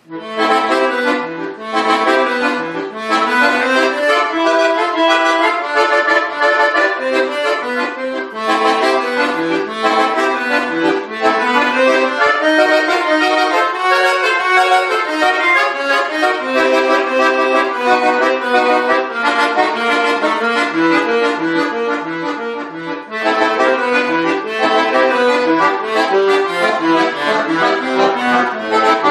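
Bayan (Russian chromatic button accordion) music: full chords and quick runs of short notes, starting suddenly, with a brief drop in loudness about three quarters of the way through before playing resumes.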